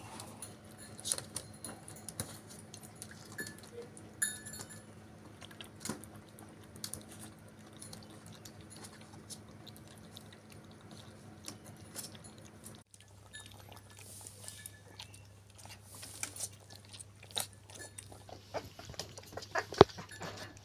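Puppies lapping milk from an ashtray: a quick, irregular run of small wet clicks and smacks from their tongues and mouths.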